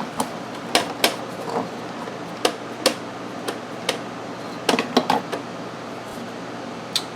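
Plastic and metal parts of a Saab 9000's air-conditioning box being handled and set down: about a dozen irregular sharp clicks and knocks over a steady background hum.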